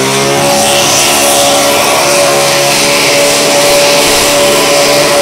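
Dodge NASCAR V8 engine in a VH Commodore screaming at high revs during a burnout. The revs climb right at the start, then hold steady near the top.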